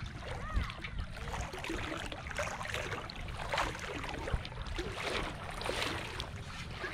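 Shallow water sloshing and splashing around a person's legs as they wade through it, in uneven rushes, over a steady low rumble.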